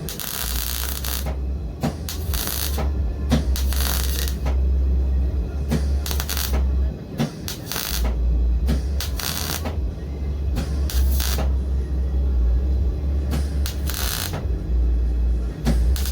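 MIG welder laying weld beads: a steady low hum with crackling arc bursts over it. It stops briefly about seven seconds in and again near the end, between runs.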